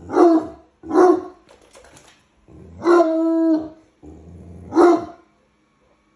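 A bloodhound barking at a Roomba robot vacuum: three short deep barks and one longer, held bay about three seconds in.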